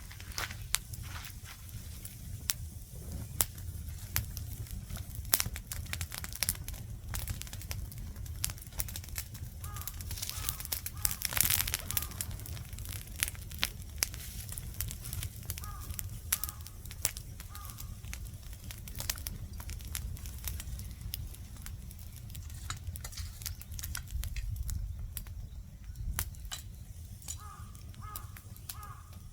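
Wood campfire crackling, with frequent irregular sharp pops and snaps over a steady low rumble. A bird calls briefly a few times, about ten seconds in, again a few seconds later, and near the end.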